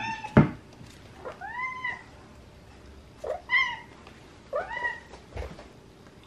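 Cats meowing four times, short calls that rise and fall in pitch, begging as a treat is held out to them. A sharp knock comes just after the first meow, the loudest sound, and a duller thump follows about five seconds in.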